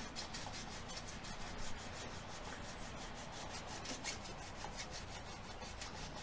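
Abrasive cloth rubbed in quick repeated strokes along the edge of a new steel scythe blade, a dry scratchy hiss. It is smoothing the edge, taking off paint, varnish and grind marks, to prepare it for peening.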